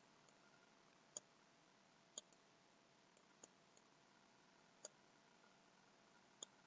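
Near silence broken by about five faint, sharp clicks, spaced a second or more apart, from clicking with a computer input device while sculpting.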